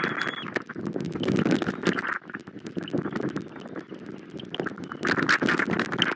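Rain falling on an eagle nest, with heavy drops tapping irregularly close to the microphone over a steady hiss that swells and eases. A faint thin whistle sounds briefly at the very start.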